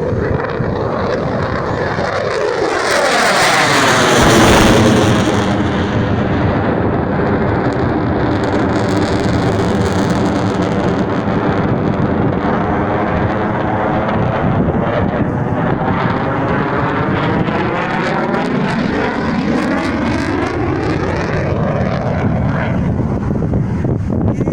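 JF-17 Thunder fighter's single turbofan jet engine roaring as it flies past low, loudest about four seconds in, with a sweeping, hollow, phasing tone in the roar as it moves across the sky and carries on.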